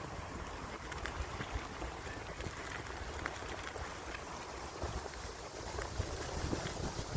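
Outdoor ambience: wind rumbling unevenly on the microphone over a steady hiss, with a few faint ticks.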